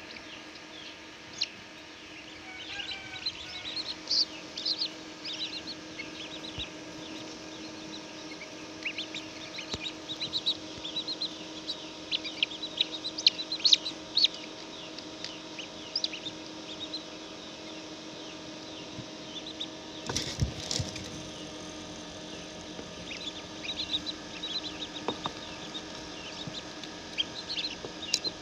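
Many chicks peeping in short, high chirps over a steady electrical hum from the incubator, with a brief thump about twenty seconds in.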